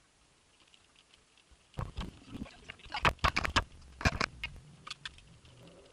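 A quick run of clicks, knocks and low thumps from the camera being handled and tilted, bunched from about two to four seconds in, with a few fainter ticks after.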